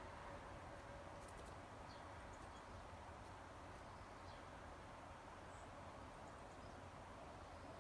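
Near silence: a faint steady background hiss with a few faint clicks and brief, faint high chirps.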